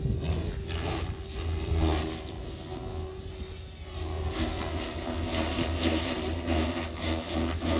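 Radio-controlled aerobatic model plane, an XL Power Specter 520, flying past, its motor and propeller drone rising and falling in pitch as it manoeuvres.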